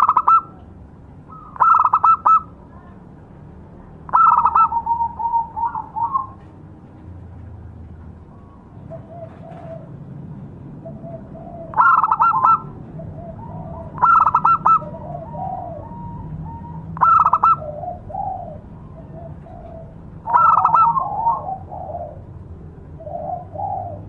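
Zebra dove (perkutut) song: short, loud staccato coo phrases repeated every two to three seconds, with softer, lower coos between them. There is a pause of several seconds in the loud phrases near the middle.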